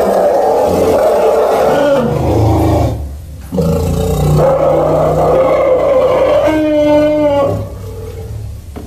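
Triceratops creature sound effect: deep, drawn-out roars. A long roar is broken by a short pause about three seconds in, a second long roar follows, and it drops to a quieter, lower call near the end.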